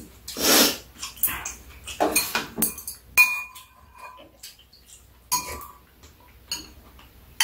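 Spoons and chopsticks clinking against ceramic bowls while eating, with a few short noisy slurps of noodles in the first few seconds and two brief ringing clinks later on.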